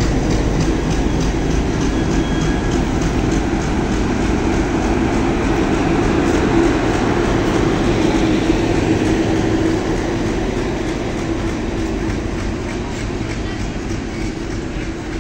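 Passenger coaches of the Mitali Express rolling past as the train pulls out of the station, their wheels clicking rhythmically over the rail joints. A steady tone rises out of the rolling noise in the middle, and the sound eases off slightly near the end as the coaches move away.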